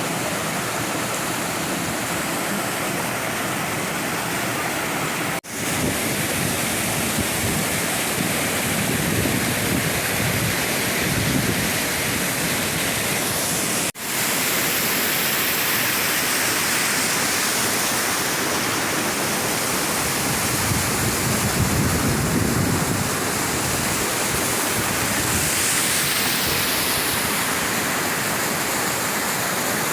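Steady rushing noise of a waterfall's falling water, close and loud. It breaks off for an instant twice, about five seconds in and again around fourteen seconds.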